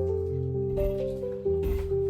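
Background music: soft sustained notes stepping from pitch to pitch, with two short noisy hits about a second apart.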